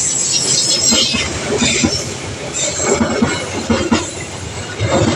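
A passenger train rolling past at close range, its wheels knocking rhythmically over the rail joints and crossing, with bursts of high-pitched wheel squeal in the first couple of seconds and again about three seconds in.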